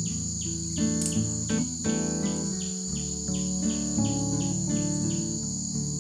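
A steady high-pitched insect drone with quick repeating chirps, under soft instrumental background music whose held notes change every second or so.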